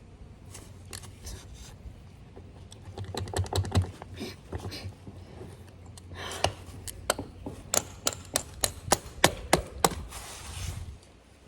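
Wrench working on the skid steer's panel bolts: irregular sharp metallic clicks and knocks, coming thick and fast, about three or four a second, in the second half, over a low steady hum.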